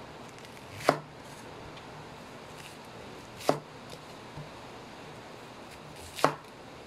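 Large kitchen knife slicing through a head of cabbage and striking a wooden cutting board: three sharp chops about two and a half seconds apart.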